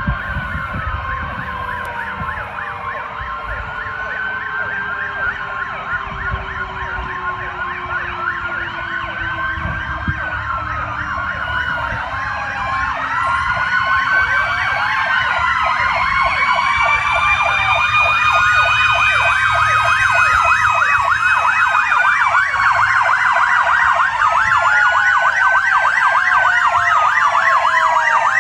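Sirens of several fire company vehicles sounding together, some in slow rising-and-falling wails and some in fast warbling yelps, growing louder from about halfway through as the vehicles approach. A lower siren tone slowly falls in pitch through the first half.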